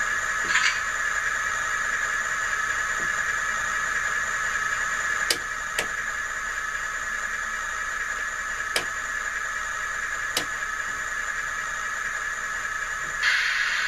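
Diesel idle sound from a DCC sound decoder in an HO scale Athearn GP-38 model locomotive, a steady thin-sounding hum through a small test speaker the builder calls not too good. A few sharp clicks are heard, and short hissing bursts come about half a second in and again near the end.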